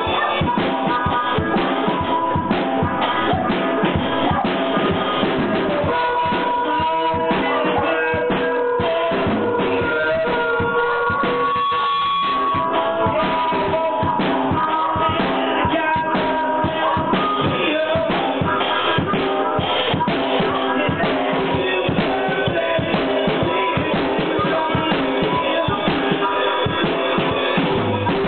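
Live band music: a harmonica played cupped against a microphone, with sustained held notes, over a steady drum-kit beat.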